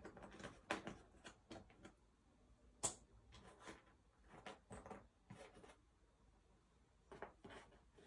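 Faint clicks and rustling of cardboard jigsaw puzzle pieces being picked up and handled, with one sharper click about three seconds in.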